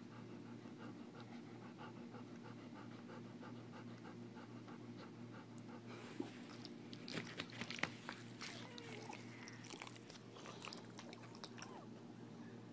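A dog panting in a quick, even rhythm, then several seconds of scattered clicks and crackles from about halfway in, over a faint steady hum.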